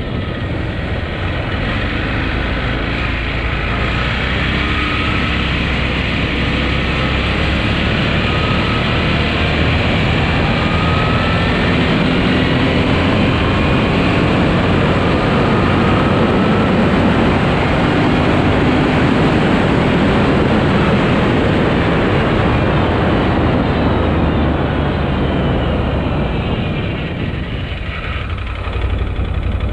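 Arctic Cat 1000cc engine running hard with its CVT drive on a speed test after a drive belt replacement, with faint whines rising in pitch through the middle. It eases off briefly near the end and then picks up again.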